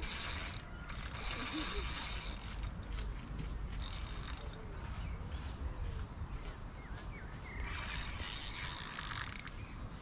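A fishing reel being wound in bursts, giving a fast clicking whir: for the first couple of seconds, briefly around four seconds in, and again near the end.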